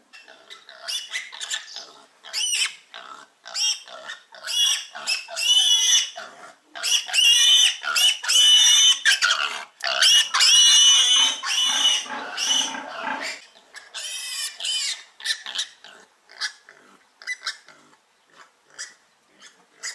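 A piglet of about two months squealing loudly over and over in distress as it is carried by its hind legs. Long, shrill screams come in the middle, then shorter, fainter squeals toward the end.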